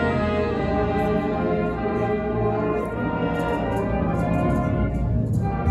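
Live symphony orchestra of strings, woodwinds and brass, tubas included, playing held chords, with a new, fuller chord coming in near the end.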